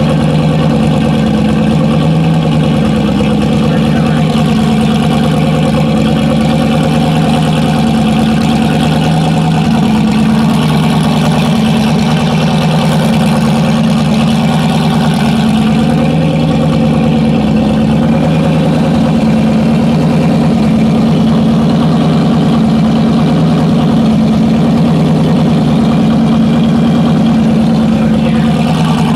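Engine idling steadily and evenly.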